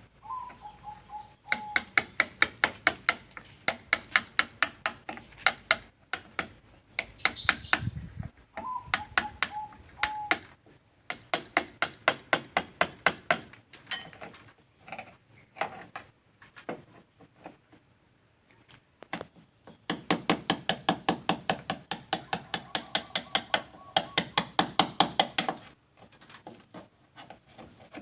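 A hand tool stripping paint and body filler off a Mitsubishi Colt T120's bodywork, in quick sharp strokes about five a second, in runs of a few seconds with short pauses between them.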